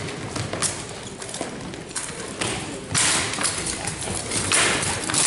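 Armored fighters' footsteps thud on a gym floor, with sharp knocks of rattan weapons striking armor. About three seconds in, a dense clattering flurry of blows, and another near the end.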